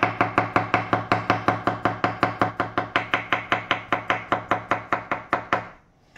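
Chef's knife rapidly slicing a pickled cucumber on a thick round wooden chopping board, each stroke knocking the blade on the wood in an even rhythm of several strokes a second. The chopping stops near the end.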